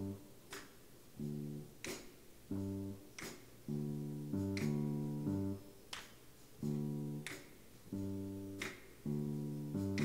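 Instrumental accompaniment with no singing: a repeating pattern of short chords with brief gaps, and light high ticks between them.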